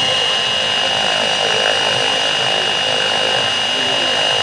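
Radio-controlled model helicopter flying low, its motor and rotor blades running with a steady high-pitched whine over a rushing drone.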